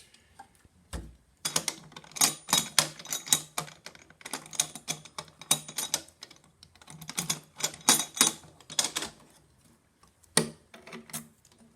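Rapid clicking and rattling of a key working the lock and latches of an aluminium motorcycle side pannier until it is locked. The clicks come in quick runs from about a second and a half in, pause, then come again near the end.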